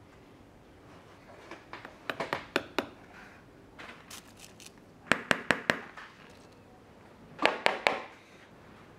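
Quick sharp taps in three short runs, four or five strokes each, starting about two, five and seven and a half seconds in: hand-tool work on a leather shoe.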